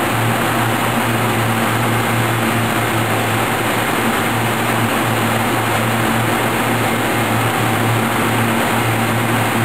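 Russell Liquid Solid Separator running: a steady low machine hum over the even rush of whey slurry pouring from a cone spout into the separator.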